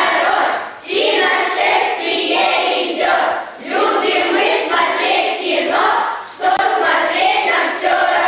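A group of children and teenagers chanting a rhyming cheer together in unison, in a run of phrases with short breaks between them.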